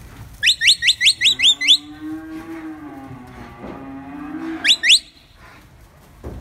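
A handler's whistle gives a quick run of about seven short rising notes, whistle commands to a herding dog working cattle; then a cow moos once, long and low, for about two and a half seconds, and two more quick rising whistle notes follow.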